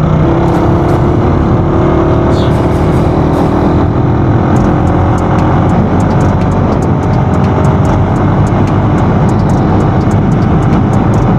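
Motorcycle engine running steadily under way, with heavy wind and road noise on the rider's microphone.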